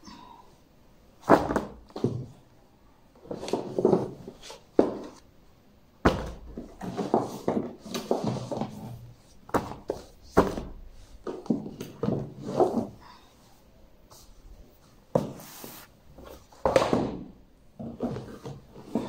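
Books being handled on a wooden bookstand: an irregular series of thuds and knocks as books are set down on stacks and slotted onto the shelves, with rustling of covers in between and several sharper knocks.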